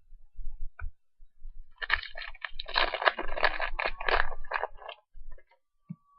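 Foil trading-card pack wrapper crinkling and tearing as it is opened, a dense run of crackles lasting about three seconds, with soft low bumps from handling.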